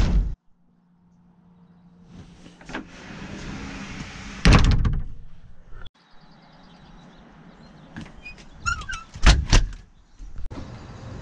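Exterior doors being opened and shut: a loud knock of a door closing at the start, another about four and a half seconds in, and a few metallic latch clicks followed by a third door shutting about nine seconds in.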